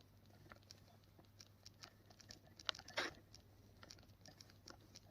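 Faint small clicks and scrapes from a hand-built tubular lockpick as its picking tips are tightened down while it sits in the picked tubular lock, with a slightly louder cluster about three seconds in.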